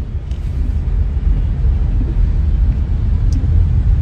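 Low, steady rumble inside a car's cabin.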